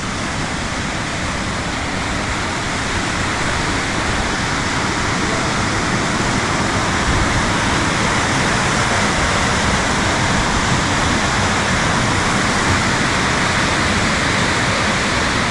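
Waterfall on a fell-side river, a steady rush of falling water that grows a little louder over the first few seconds.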